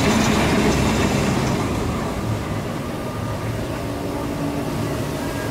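Expedition Everest roller coaster train rolling down its track out of the mountain with a steady rumble. The rumble fades after about two seconds as the train moves away.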